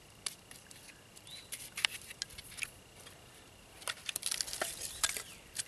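Irregular sharp crackles and clicks of dry wood, sparse at first and coming thick and fast about four seconds in, over a faint steady high whine.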